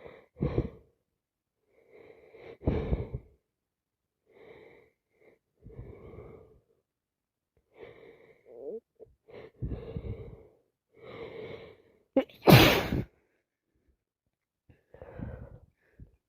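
A person with a nose congested by a sinus infection and allergies taking a run of short, catching breaths and sniffs. They build to one loud sneeze about twelve and a half seconds in, followed by one more breath.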